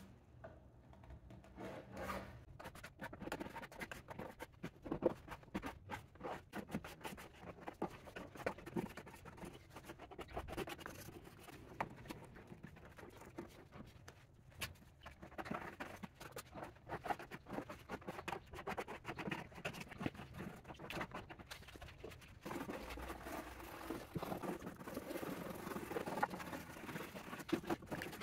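Plastic scraper dragged in short, irregular strokes across an oak tabletop, scraping off old finish softened by chemical stripper. Toward the end the strokes turn into a denser, steadier rubbing across the wood.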